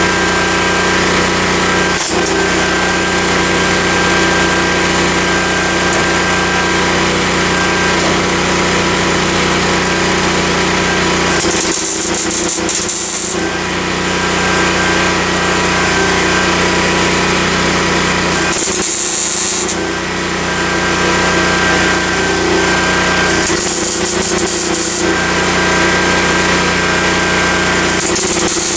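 Generator engine running steadily, powering a Miller 220 V welder. Four short bursts of welding crackle, each one to two seconds long, as patches are tacked onto the floor pan.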